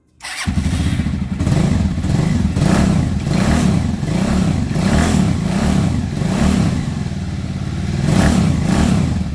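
Dafra Horizon 150 single-cylinder motorcycle engine running and being revved up and down again and again, after a fresh balancer spring and damper kit has been fitted. It sounds 'redondinho': smooth, without the balancer rattle it had on acceleration.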